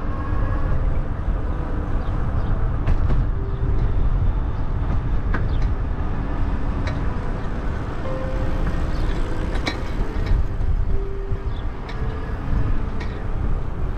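Wind buffeting the microphone of a camera carried on a moving bicycle, a steady low rumble that flutters throughout. Faint short notes and light ticks come and go over it.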